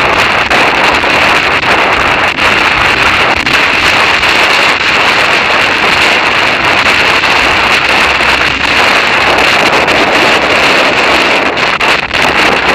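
Loud, steady wind noise on the camera microphone from the rush of air during a fast bicycle descent down a mountain road.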